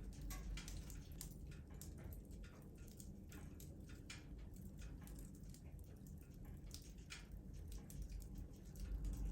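Wood fire in a fireplace crackling, with irregular sharp pops and snaps, several a second, over a low steady rumble.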